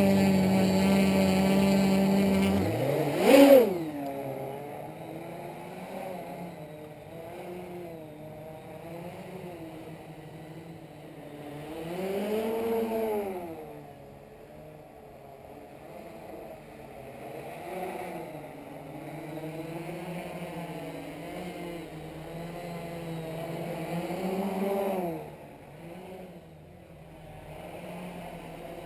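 Small home-built race quadcopter's electric motors and propellers buzzing as it hovers. The pitch wavers up and down with throttle corrections. It is loud and steady for the first couple of seconds, swells sharply about three seconds in, and rises in louder swells twice more later on.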